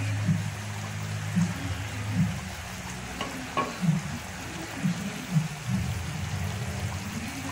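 Thick beef asado sauce simmering in a large aluminium pot, bubbling with irregular low plops over a steady hiss, and a couple of sharp clicks in the middle.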